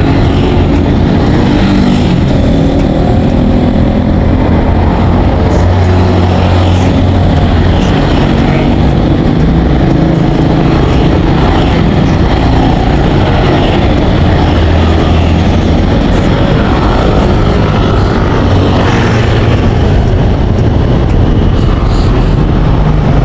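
A motor vehicle driving: steady, loud engine and road noise with no siren.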